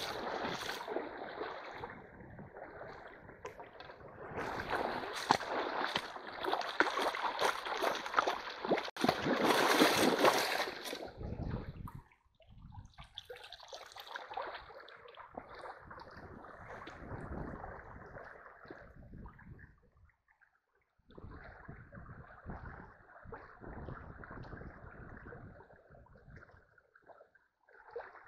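Shallow stream water splashing and sloshing around a hand net worked through it, loudest in the first half. After about twelve seconds it turns to softer water noise, with a brief pause about twenty seconds in.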